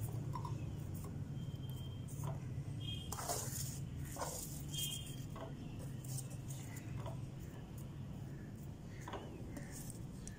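Faint rustling of butter paper and soft taps of frozen banana biscuits as they are picked off the paper and dropped into a bowl, with short scattered handling noises over a steady low hum.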